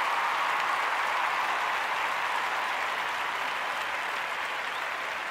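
Crowd applause: a steady, dense patter of many hands clapping.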